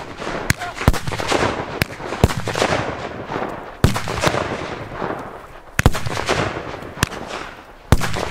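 A 19-shot salute firework cake firing: about eight sharp bangs at uneven intervals, with a noisy hiss between them.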